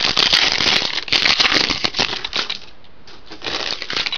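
Foil trading-card pack being torn open and crinkled in the hands: dense, rapid crackling for about two and a half seconds, then quieter scattered rustling as the cards come out.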